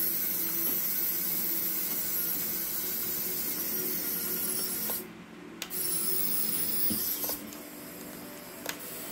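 Small electric motors of a Redcat Gen8 V2 RC crawler whirring: the winch motor paying out line while the drive motor backs the truck up. A steady whirr with a high whine that cuts out briefly about five seconds in, comes back, then drops to a quieter level after about seven seconds.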